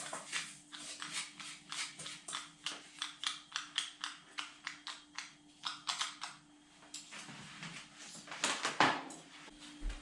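Inline lamp foot switch clicked over and over by hand: a quick, irregular run of sharp clicks that stops about six and a half seconds in, with a louder clatter near the end.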